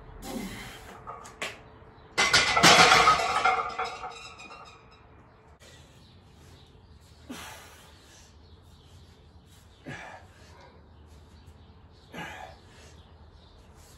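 A plate-loaded barbell is set back into a steel squat rack, with a loud clanking crash of iron plates and bar on the uprights lasting about two seconds. It is followed by short hard exhales from the lifter, about every two and a half seconds.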